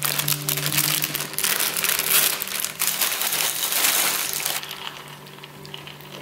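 Plastic cereal-bag liner crinkling in the hands, then small ring-shaped cereal pouring out of it and pattering into a ceramic bowl. The sound thins out about four and a half seconds in.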